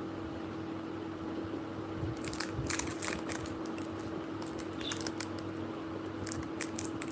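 Crinkling and clicking of plastic cosmetics packaging being handled and opened, in scattered bursts from about two seconds in, over a steady low hum.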